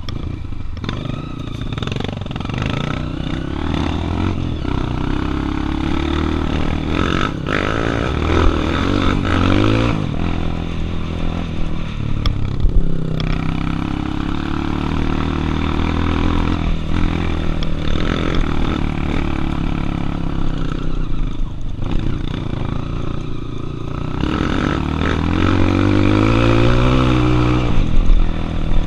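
Single-cylinder four-stroke trail motorcycle engines under way off-road, the engine note rising and falling again and again as the throttle is opened and closed, with knocks and rattles from the bike over rough ground.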